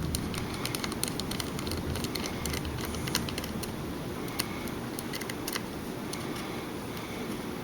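Scattered light clicks and ticks from a small screwdriver and fingers working a tiny screw out of a compact digital camera's body, over a steady low background noise.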